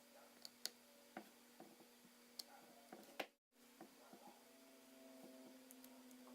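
Near silence: a low steady hum with a few faint, sharp clicks, and a brief complete dropout about three and a half seconds in.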